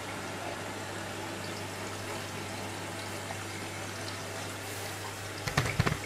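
Hoover AC158 Classica 1000 front-loading washing machine taking in water for a rinse: a steady rush of water with a low hum. Near the end, a quick cluster of loud knocks.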